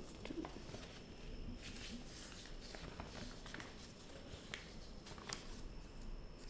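A sheet of paper being folded by hand on a cutting mat: faint rustling and scraping as it is handled and creased, with a few soft clicks.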